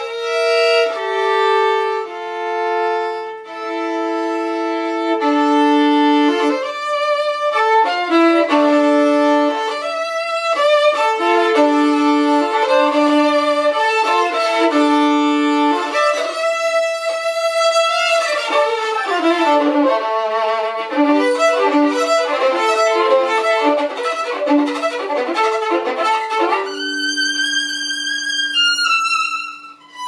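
Solo violin playing unaccompanied, with long bowed notes at first, a quicker run of notes in the middle and a high held note near the end.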